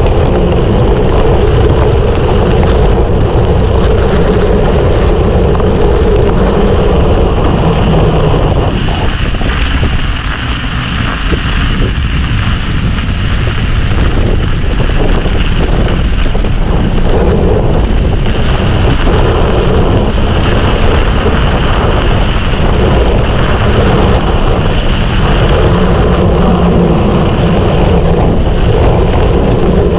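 Wind buffeting the microphone over the rolling noise of a mountain bike's tyres on the trail during a descent, easing briefly about ten seconds in.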